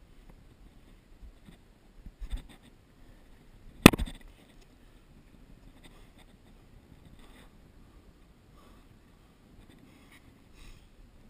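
Close scrapes and rustles of a climber's hands and jacket moving over rock, with a couple of knocks a little over two seconds in and one sharp, loud click about four seconds in.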